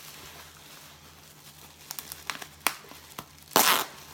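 Plastic bubble wrap crinkling and crackling as it is unrolled and flattened by hand: scattered sharp crackles from about two seconds in, then one loud rustle at about three and a half seconds.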